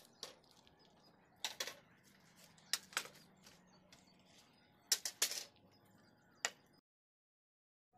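Irregular sharp knocks and clanks from formwork (centering) work, about seven in all, some in quick pairs, over a faint steady hum. The sound cuts off suddenly about a second before the end.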